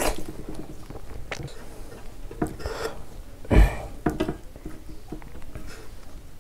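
Close-up mouth sounds of a person chewing a mouthful of buckwheat dhido, with fingers scraping and tapping on a metal plate as he eats by hand. A louder thump comes about three and a half seconds in.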